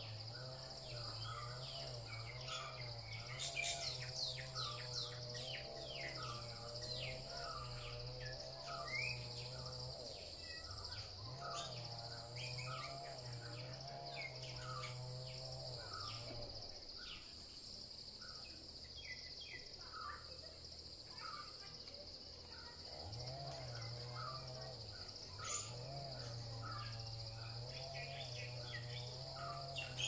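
Tropical forest dawn chorus: a steady high insect drone, a bird repeating one short note a little faster than once a second, and scattered quick chirps that bunch up a few seconds in. A low hum underneath drops out twice and comes back.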